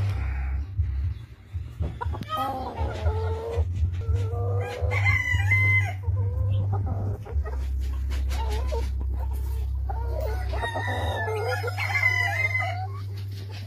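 Cochin bantam chickens clucking and a rooster crowing, in three bouts of calls about two, five and eleven seconds in, over a steady low rumble.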